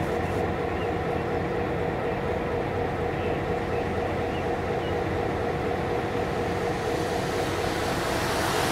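Diesel-electric locomotive idling steadily, a low engine drone with a steady hum. Near the end a road vehicle approaches, its rising tyre and road noise growing louder.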